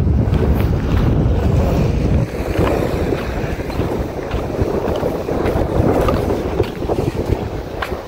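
Wind buffeting the microphone: a heavy low rumble that eases about two seconds in, with scattered light clicks and knocks over it.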